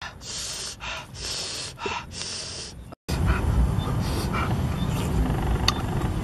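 A man's short, hissing breaths and gasps, four in about three seconds. After a sudden cut, wind rumbles on the microphone with a couple of faint clicks.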